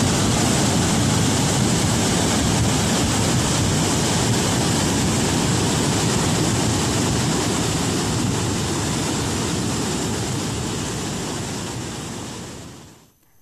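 Muddy floodwater of a river in spate rushing past in a steady, loud, churning noise, fading out near the end.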